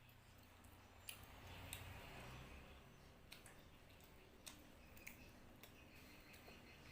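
Faint eating sounds: quiet chewing with scattered small sharp clicks of the mouth and lips, over a low steady background hum.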